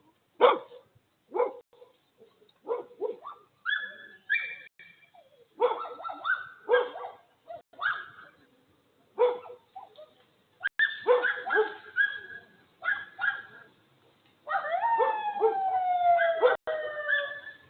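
A dog crying out in short repeated yelps and whimpers, then a run of long whining howls that fall in pitch near the end: the cries of a dog hurt after being struck by a vehicle.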